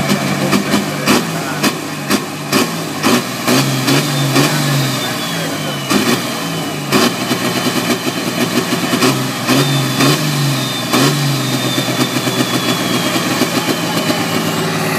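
Valtra pulling tractor's diesel engine idling and being revved in short bursts, its note stepping up and back down twice. Many short sharp cracks run through it, and a faint high whistle falls in pitch after each rev.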